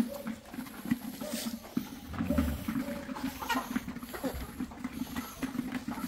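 Chickens and chicks calling continuously, a steady jumble of many overlapping calls.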